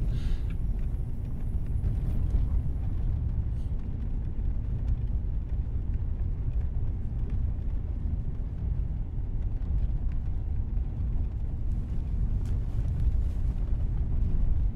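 Steady low background rumble, like a running vehicle or a distant drone, with no speech and a few faint clicks near the end.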